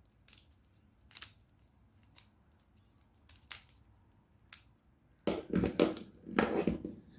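Plastic fidget puzzle cube being turned by hand: scattered single clicks, then two louder runs of rapid clicking and rattling about five and six and a half seconds in.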